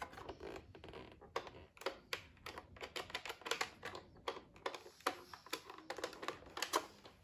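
Light, irregular clicks and taps of hands handling a plastic Nerf blaster.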